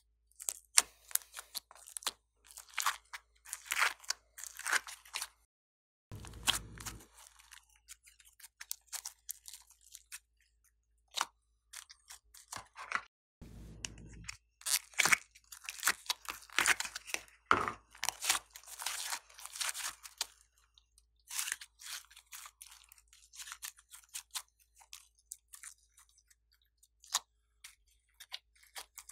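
Fingers pressing into and pulling at sticky slime and soft foam clay, giving irregular crackling clicks and crunches with brief quiet gaps. Twice, about six and fourteen seconds in, a short low rumble as the plastic container is handled.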